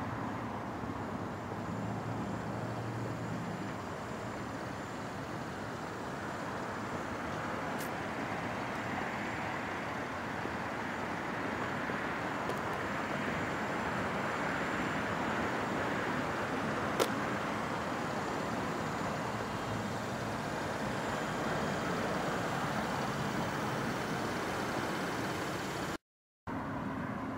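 Steady outdoor road-traffic noise that swells and eases around the middle, with a single sharp click about two-thirds of the way through. The sound cuts out completely for a moment near the end.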